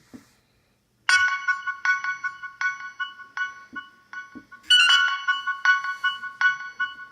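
Nokia 6021 mobile phone ringtone playing through the phone's speaker: a melody of repeated chime-like notes that starts about a second in and gets louder and fuller about halfway through.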